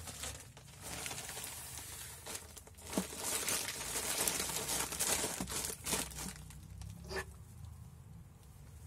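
Crumpled wrapping crinkling and rustling as it is handled, densest in the middle, followed by a single sharp click about seven seconds in.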